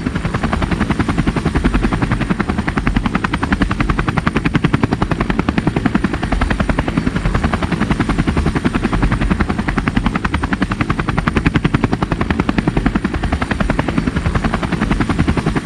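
Helicopter rotor sound: a loud, steady, rapid and even chopping over a low rumble.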